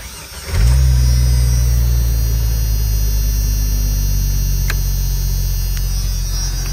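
1995 Jeep YJ Sahara's engine started with the key, catching after about half a second and then idling steadily. Two faint clicks come in the second half.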